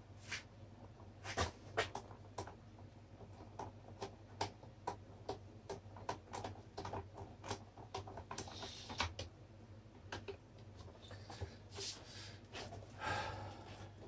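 Light, irregular clicks and taps of a screwdriver and plastic parts as a desk fan's motor housing is unscrewed and taken apart, with short scraping rustles about two-thirds through and near the end. A low steady hum lies underneath.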